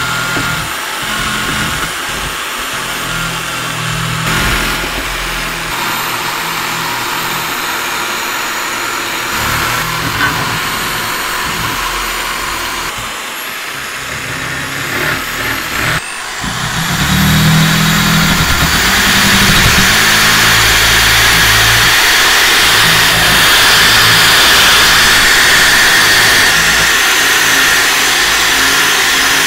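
Handheld rotary tool running at high speed with a thin motor whine, its abrasive wheel grinding rust off cast-iron meat grinder parts with a steady scraping hiss. It gets louder about halfway through as the wheel works harder on the metal.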